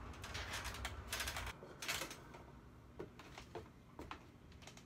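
Shoes knocking on the rungs of a wooden pull-down attic ladder as someone climbs it: a run of irregular light knocks and clicks.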